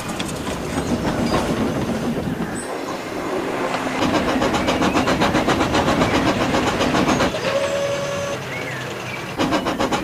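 Train running fast, with rapid, even rhythmic beats of chuffing and rail clatter over a dense running noise. A short held whistle-like tone sounds about three-quarters of the way through.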